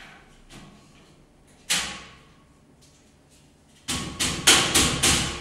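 Knocks and bangs of hard objects being handled: one sharp knock about two seconds in, then a quick run of about six knocks near the end.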